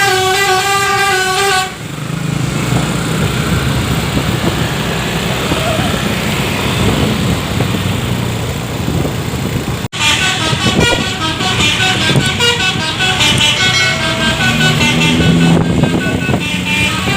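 Tour bus's telolet horn holding a chord of several tones, cutting off about a second and a half in, followed by bus engine and road noise. About ten seconds in the horn starts again, playing a quick tune of high, changing notes over the engine.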